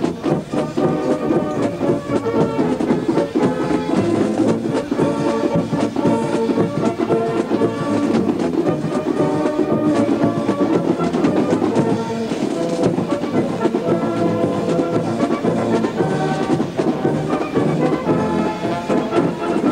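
Brass band music playing steadily.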